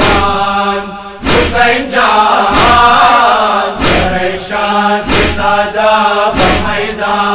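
Men's group chanting a Persian noha, a Shia lament for Husain, in unison, over a heavy beat that comes about every second and a quarter, the rhythm of matam chest-beating.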